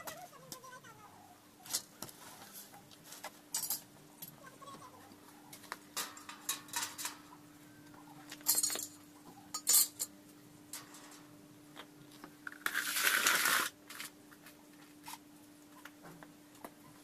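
Scattered clinks and knocks of steel profile parts and tools being handled during assembly of a metal frame, with a short burst of a power drill about thirteen seconds in.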